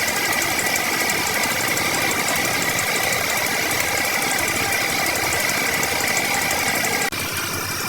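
A woodworking machine running steadily, with a constant high whine over a dense buzz; about seven seconds in the sound cuts abruptly to a slightly quieter, different running noise.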